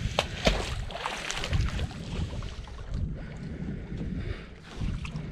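A large magnet-fishing magnet on a rope splashing into the water, with a couple of sharp knocks and a hissing splash in the first two seconds. A steady low wind rumble sits on the microphone throughout.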